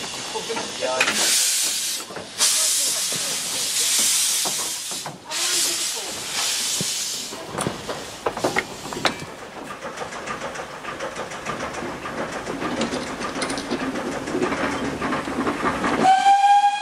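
Steam locomotive hissing steam in three long bursts as it moves off, then the wheels and couplings of the slow-moving train clicking and knocking. A steam whistle starts near the end, one steady note.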